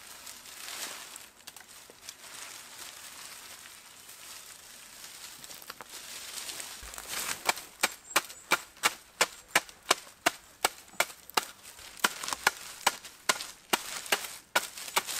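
Reed being handled and rustling, then from about seven seconds in a steady run of sharp knocks, roughly three a second, as a hand tool taps the reed thatch at the eaves.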